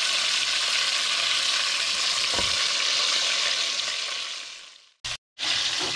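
Breaded chicken pieces deep-frying in hot oil in a stainless steel pot: a steady, even sizzle. About four seconds in it fades out, drops to silence for a moment, then the sizzle comes back.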